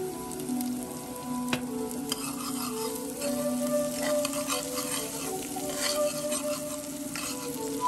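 Chopped red onion, garlic and chili flakes sizzling in hot oil in a pot, stirred with a metal spoon that scrapes the pot bottom, busier from about two seconds in. Soft background music with long held notes plays underneath.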